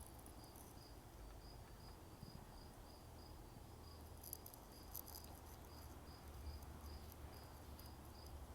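Faint insect chirping, a steady high-pitched pulse repeating about three times a second, over a low background rumble.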